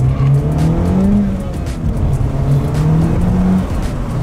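2018 Honda Civic Type R's turbocharged 2.0-litre four-cylinder engine, heard from inside the cabin, revving up through a gear. The pitch drops at an upshift about a second and a half in, climbs again, and drops at a second upshift near the end.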